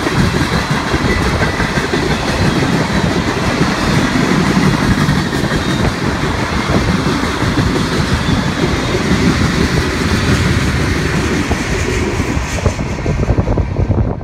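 Freight train tank cars rolling past close by, the steel wheels rumbling and clattering steadily on the rails. The sound thins near the end.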